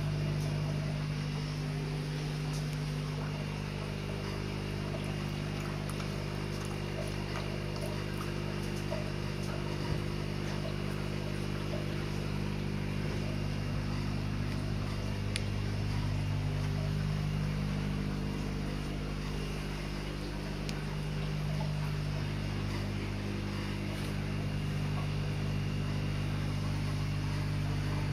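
Steady low mechanical hum made of several held tones, swelling and easing slightly in loudness, with a couple of faint ticks.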